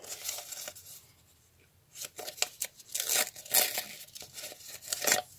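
Paper rustling and tearing as a small handmade paper packet is unfolded and torn open by hand: a brief rustle at the start, then a busier run of crackly tearing and rustling from about two seconds in.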